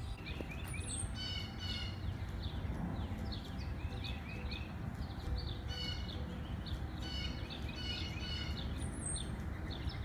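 Small birds chirping and singing, with many short rising and falling notes repeated throughout, over a low steady rumble.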